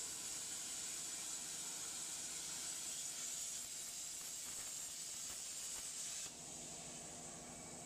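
Faint steady hiss, strongest high up, dropping slightly in level about six seconds in.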